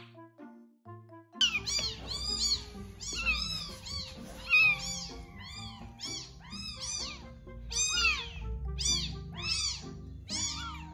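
A tiny newborn kitten, about 85 g, screaming over and over while being syringe-fed milk: shrill rising-and-falling cries about twice a second. It is so desperate for milk that it cries even as it drinks. A short music jingle is heard in the first second or so before the cries begin.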